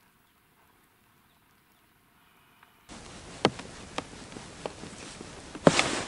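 Near silence, then after about three seconds a handful of sharp clicks and crunches, handling noise from an angler kneeling on snow-covered ice at his fishing hole.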